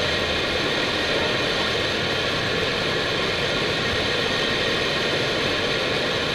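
Airbus A319 cockpit noise on final approach: a steady, even rush of airflow over the airframe and running engines, with a few faint steady tones over it.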